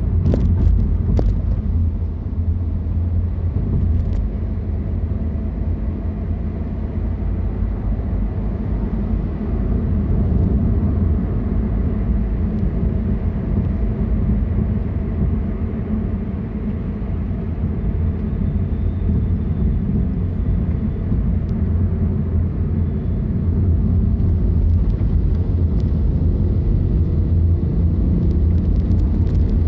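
Steady low rumble of a car being driven: engine and road noise, with a few short sharp clicks near the start and more toward the end.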